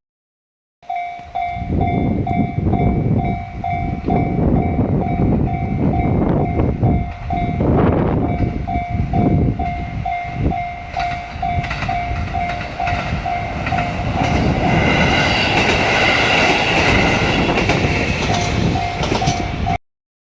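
Level-crossing warning bell ringing in a steady ding-ding, about two strokes a second. A KiHa 54 diesel railcar passes over the crossing with engine and wheel rumble. A higher, brighter tone joins for a couple of seconds about three quarters of the way through.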